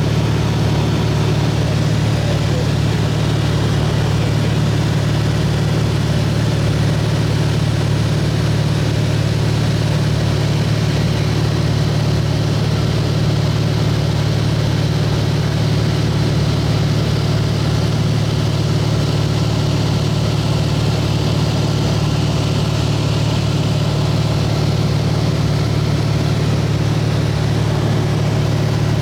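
Light aircraft's piston engine and propeller droning steadily, heard from inside the cabin as a constant low hum with a rush of airflow noise.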